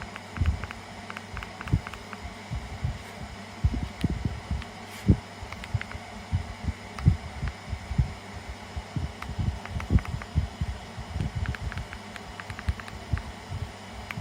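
Bladeless tower fan running with a steady low hum, over irregular low thumps several times a second.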